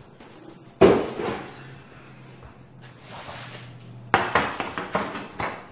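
A single sharp knock about a second in as unboxing packaging is handled. Near the end comes a run of crinkling and rustling from a plastic accessory bag being picked up.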